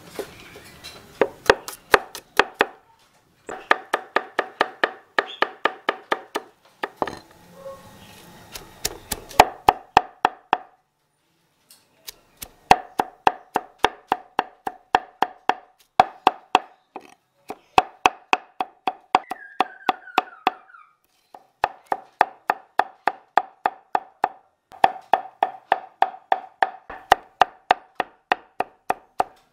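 Heavy cleaver chopping a heap of shallots, spices and roots on a wooden chopping board: quick, even strokes about four a second, each a sharp knock with a ringing wooden tone, in runs broken by short pauses. A short falling bird chirp comes near the middle.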